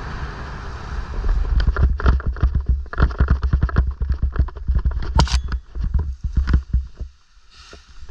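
Powered paraglider crashing: the paramotor's engine note gives way to a rapid, irregular flurry of hits and scraping over a heavy low rumble, which dies away about seven seconds in.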